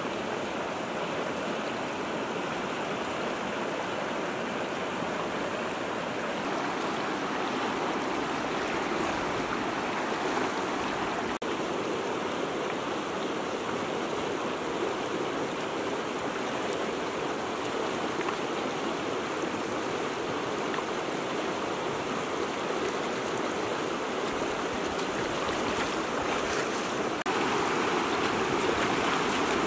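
Shallow rocky river rushing steadily over stones in small rapids; it gets a little louder near the end.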